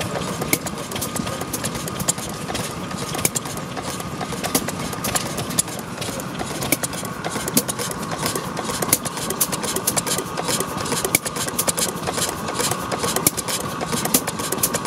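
Goodman stationary gas engine running steadily, with a rapid, even clicking throughout.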